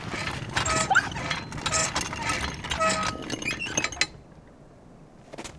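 Railway handcar rolling in on the rails with clattering metal and repeated short squeaks, stopping abruptly about four seconds in.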